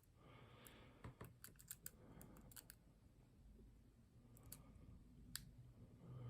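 Faint, irregular metallic clicks of a lock pick working the pin stacks of a pin-tumbler lock under tension, most of them in the first three seconds and a couple more near the end.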